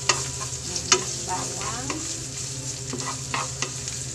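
Chopped garlic sizzling in a little hot oil in a nonstick pan, stirred with a wooden spatula that scrapes and taps against the pan several times.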